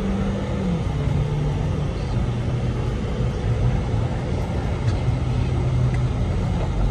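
Volkswagen Polo GT-TSI's engine and road noise heard from inside the cabin while driving; the engine note drops in pitch in steps, about a second in and again a second or so later, as the revs fall.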